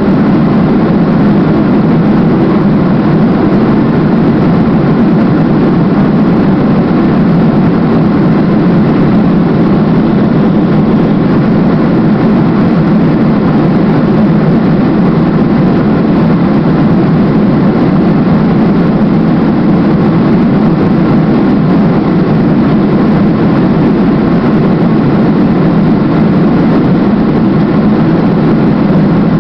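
Steady cabin roar of a Boeing 737-200's Pratt & Whitney JT8D turbofan engines at taxi power, heard from a seat right beside the engine. The noise is even throughout, with no spool-up.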